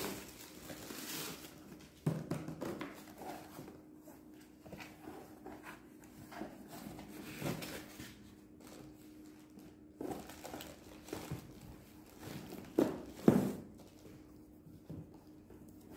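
A cardboard carton being unpacked by hand: packing tape pulled off at the start, then flaps, polystyrene and plastic-wrapped parts rustling and scraping with small knocks, and two louder knocks about half a second apart around 13 seconds in. A faint steady hum runs underneath.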